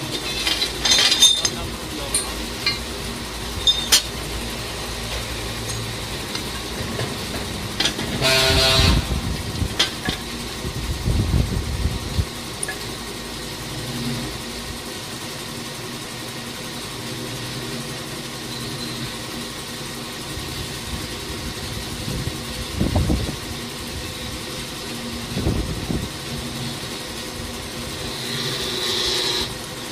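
Metal clinks and knocks of steel crawler track links, pins and bushings being handled on a hydraulic track press, with a short horn-like tone about nine seconds in.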